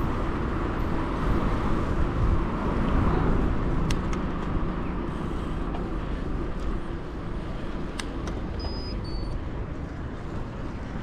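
Steady rushing wind and tyre noise of a bicycle rolling down a road, slowly fading, with two sharp clicks about four and eight seconds in.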